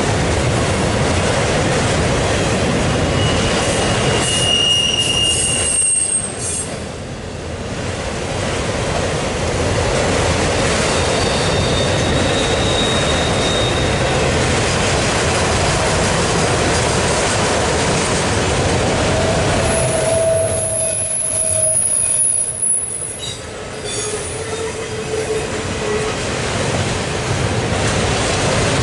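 Autorack cars of a CSX freight train rolling steadily past, their wheels rumbling on the rails, with several brief high-pitched wheel squeals along the way. The loudness dips briefly twice.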